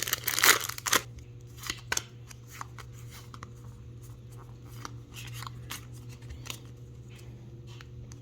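Foil booster-pack wrapper crinkling loudly for about the first second as it is opened, then scattered soft clicks and scrapes of trading cards being handled.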